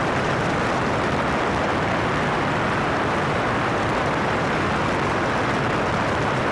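Light airplane in flight: a steady rush of wind and engine noise on an externally mounted camera, unchanging throughout.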